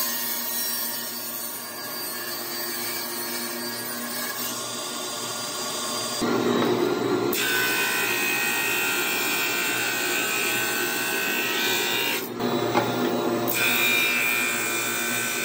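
Table saw cutting a glued-up walnut and purpleheart board fed through on a crosscut sled. About six seconds in, a 16-32 drum sander runs with a steady whine over the hiss of 80-grit paper sanding the board as it feeds through.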